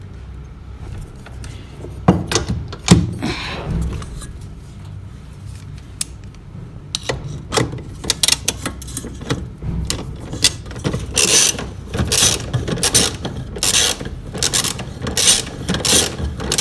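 Irregular clicks, taps and scraping of tools and metal parts being handled while a replacement washing machine wash motor is fitted and its connections made, growing busier and louder about halfway through.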